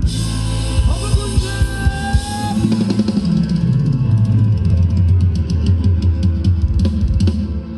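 A live band playing Thai ramwong dance music: drum kit, electric guitar and a strong bass line, with a run of quick, even cymbal ticks in the second half.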